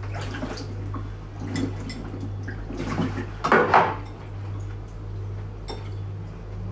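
Kitchen dishes and utensils clinking and being handled, with one louder noisy sound of about half a second about three and a half seconds in, over a steady low hum.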